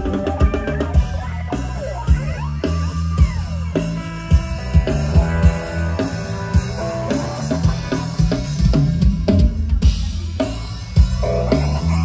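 A live band playing amplified through PA speakers: a drum kit with a steady beat, a heavy bass line and guitar, with a few bending melodic notes about three seconds in.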